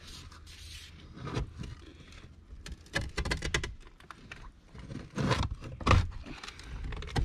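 A metal shovel prying and scraping against the rusted door and window trim of a sunken Chevrolet Monte Carlo, trying to pop a brace away from the door latch. It makes irregular knocks and scrapes, loudest about six seconds in. The door does not budge.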